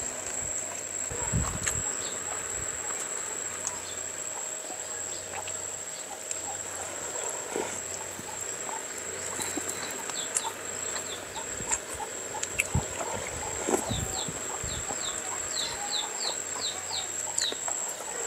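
Birds chirping: short falling chirps that start about halfway through and come in a quick run near the end, over a steady high-pitched whine. Light clicks of spoons and fingers on plates and bowls.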